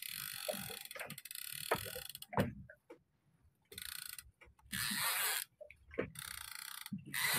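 Fishing reel working against a hooked fish: gear noise and fine clicking, in uneven spells with brief gaps.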